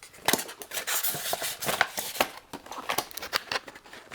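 Packaging being handled: a quick, irregular run of rustles, crinkles and small clicks.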